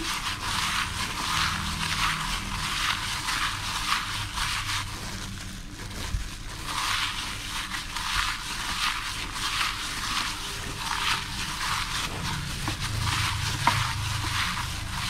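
A plastic-gloved hand squeezing and kneading ground pork mixed with grated jicama in a glass bowl: wet squelching and crinkling of the thin glove, in repeated strokes.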